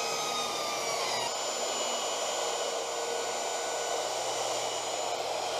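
Corded SKIL circular saw running as it cuts through a sheet of panel board: a steady motor whine with the hiss of the blade. Its pitch sags slightly about a second in, then it runs on evenly.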